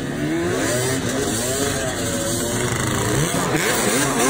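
Sport quad's engine revving up and down over and over as it spins in loose dirt. The pitch rises and falls about once a second, and faster near the end.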